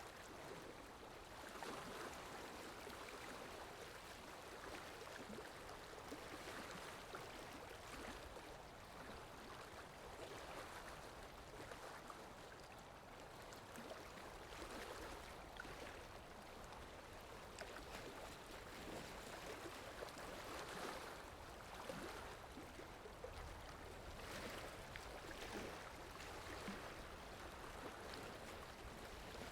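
Faint, steady sound of moving water, waves washing and splashing, swelling and easing every second or two.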